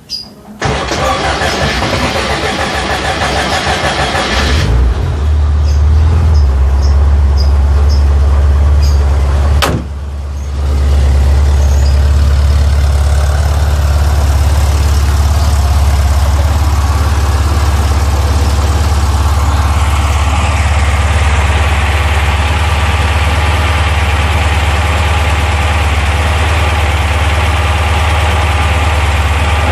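VW Safari's air-cooled 1600 cc flat-four engine being started from cold: the starter cranks for about four seconds, the engine catches and settles into a steady idle to warm up, with a sharp click and a brief dip in level about ten seconds in.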